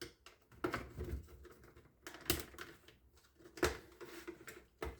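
Small flat screwdriver prying up the bezel of a tachograph rev counter: a string of small sharp clicks and scrapes, with a few louder clicks spread through.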